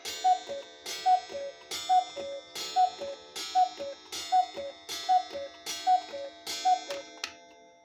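Mechanical cuckoo clock calling the hour: a two-note cuckoo, high then low, from its bellows pipes, repeated about every 0.8 s, nine calls in all, each with a sharp ringing gong strike, stopping about seven seconds in. The clock's tick runs underneath.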